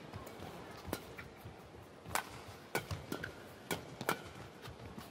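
Badminton rackets striking a shuttlecock during a fast rally: a run of sharp, short hits, roughly one a second and some closer together, over a low arena background.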